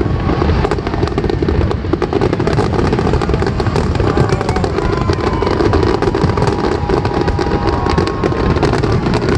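Fireworks going off in rapid, unbroken succession: dense bangs and crackling over a continuous low rumble of aerial shells bursting.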